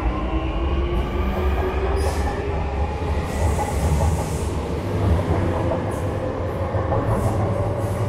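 Hyundai Rotem E 64000 electric multiple unit moving along the platform with a steady low rumble, its traction whine rising in pitch as it picks up speed. A few short high hisses come through around two and four seconds in.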